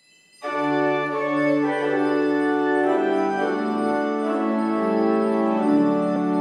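Organ music: sustained chords that begin about half a second in and move to new chords every second or two.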